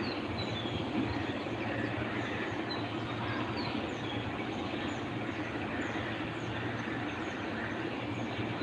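Steady low outdoor background rumble, with faint short high chirps scattered throughout.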